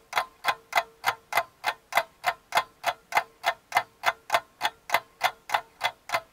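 Steady, even ticking, about three and a half ticks a second, like a clock-ticking sound effect, with a faint steady tone underneath.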